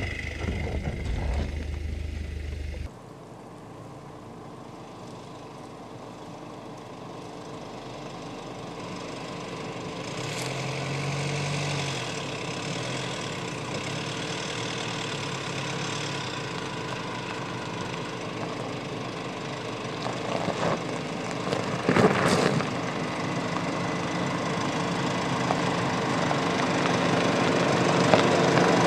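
Mercedes-Benz GLC SUV crawling slowly over loose gravel: the engine running at low revs under the crunch and crackle of stones under the tyres, growing louder as it comes closer. The engine note changes abruptly about three seconds in, and sharp crackles of gravel stand out about a third of the way in and again later.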